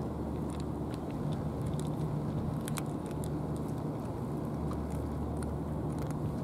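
A cat crunching dry kibble, with short, irregular crunches, over a steady low engine-like hum.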